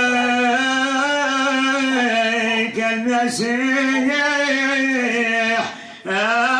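A man singing a Moroccan Sufi madih (devotional praise song) without instruments, in long, drawn-out melismatic phrases. The voice breaks off briefly near the end, then comes back in.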